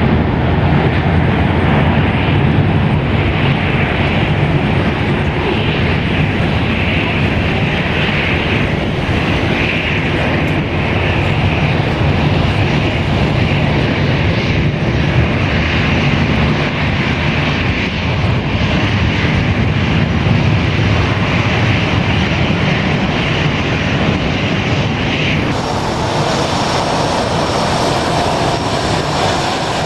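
Boeing 767-400ER's twin General Electric CF6-80C2 turbofans at takeoff power as the jet departs: a loud, steady jet rumble with a hiss around it. About 25 seconds in, the character of the sound changes abruptly.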